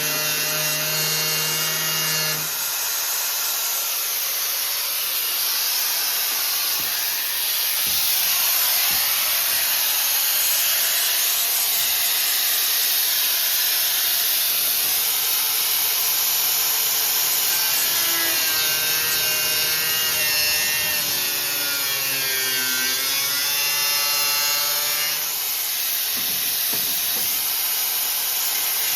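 Grinder with a cut-off wheel cutting through a car's sheet-steel floor pan: a continuous gritty cutting noise over the motor's whine. About two-thirds of the way through, the whine slides down and back up in pitch as the wheel loads in the cut.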